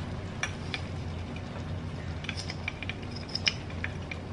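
Small clicks and scrapes of a metal measuring spoon against a spice jar as dried basil is scooped out, a scattering of light taps that bunch up past the middle, over a steady low hum.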